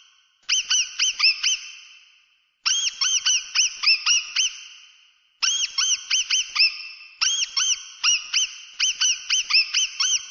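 Mouse squeaking sound effect: quick runs of short, high squeaks that rise and fall, four to eight in a row, repeated in bursts with a brief echo fading after each.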